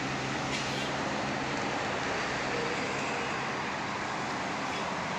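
Bus engine running on the road with an even road and tyre noise; its steady low engine tones fade after about a second and a half.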